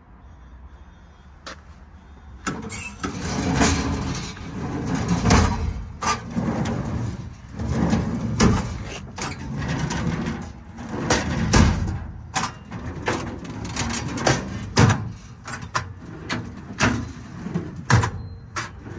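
American Eagle steel tool drawers being pulled out and pushed shut one after another from about two and a half seconds in: metal drawer slides rumbling, with latches clicking and drawers knocking home. The drawers slide and latch as they should.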